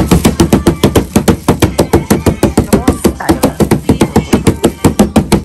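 Hands rapidly slapping the flat top flap of a large cardboard box, a quick, even drumming of about seven hollow slaps a second, with a child's voice between the slaps.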